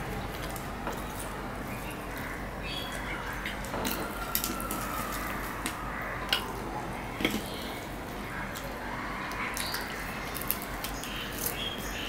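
Eating by hand: fried luchi torn apart, fingers tapping on steel plates and chewing, heard as scattered small clicks and crackles, with a few sharper ones in the middle.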